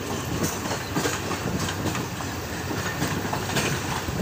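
Diesel-hauled passenger train running along the track: a steady rumble of wheels on rails, with a few sharp clicks as the wheels pass over rail joints.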